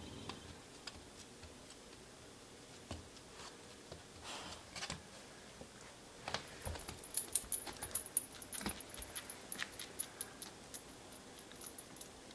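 Metal dog tags jingling on a collar as the dogs move and play, a run of light, bright clinks mostly in the second half, with scattered soft clicks and a brief rustle earlier.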